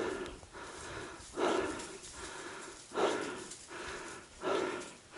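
Heavy breathing close to the microphone, with a loud breath about every second and a half.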